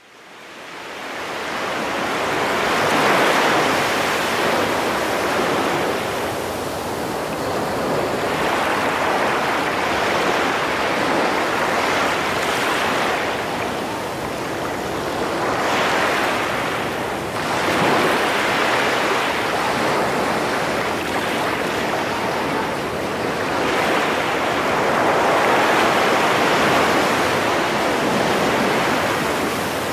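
Ocean surf washing up on a beach, a steady rush that swells and eases every few seconds. It fades in at the start.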